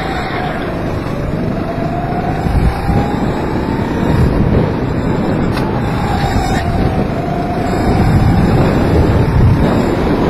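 Kart engine running at racing speed. Its whine drops in pitch into a corner about a second in and again around six to seven seconds, rising between and after. Heavy wind noise on the microphone.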